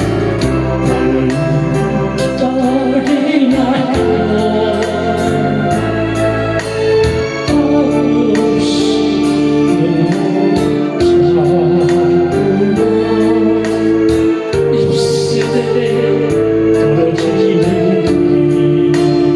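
A song playing: a voice singing over long held organ-like keyboard chords with a steady beat.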